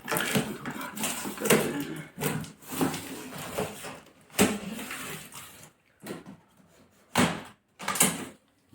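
Cardboard keyboard box being cut open with a knife and its flaps pulled apart: irregular scraping and tearing. It thins out in the second half to a few separate sharp rasps.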